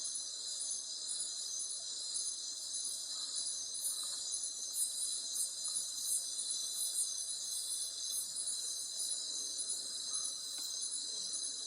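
Rainforest insect chorus: a steady, dense high-pitched shrilling, with quick flickering chirps layered above it.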